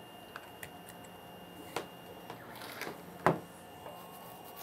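Small clicks and rattles of cable connectors being handled and plugged into a Deltaprintr Go delta 3D printer, with one sharp click a little past three seconds in. A faint steady tone comes in near the end.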